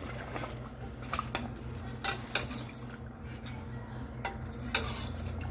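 A metal spoon clinking and scraping in a pressure cooker pot while cooked mutton masala is stirred, with several irregular clinks.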